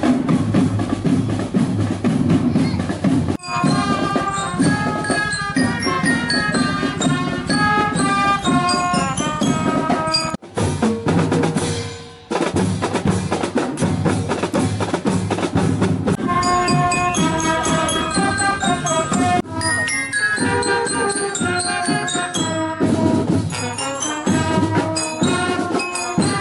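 Marching drum band playing: snare and bass drums beating under a melody of clear, bell-like notes on bell lyres (glockenspiel). The sound jumps abruptly several times, with a brief drop about ten seconds in.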